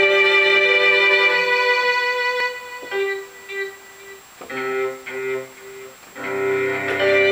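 Synthesized string-like keyboard patch, played from a Roland A-49 MIDI controller through software instrument sounds. Slow, held melody notes thin out to shorter notes in the middle, then return near the end as a fuller chord with a low bass note underneath.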